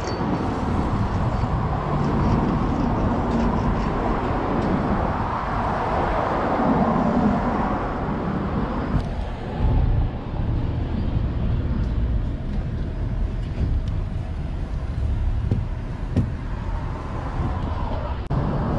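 Steady outdoor street traffic noise, a continuous rumble with a hiss above it; the hiss drops away about nine seconds in while the low rumble goes on.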